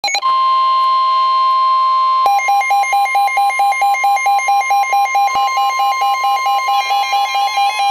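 NOAA Weather Radio warning alarm tone, the steady shrill 1050 Hz alert that goes out ahead of a tornado warning. About two seconds in, a rapid electronic beeping at about six beeps a second joins it and keeps going over the tone.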